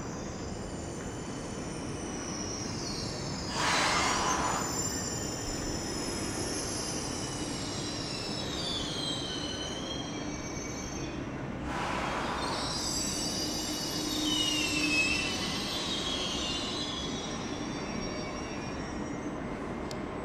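Trenitalia ETR 610 Pendolino high-speed train pulling slowly into the platform, its wheels squealing in high, wavering tones over a steady low hum. Two short bursts of hissing come about four and twelve seconds in.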